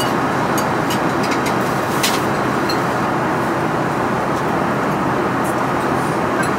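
Steady cabin noise of an airliner in flight, an even rush of engine and airflow noise, with faint light clicks scattered through it.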